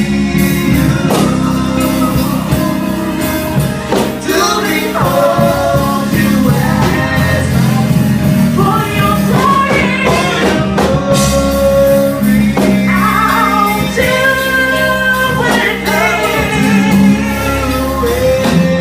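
Loud gospel praise music: a singing voice over instruments with sustained notes and regular percussion strokes.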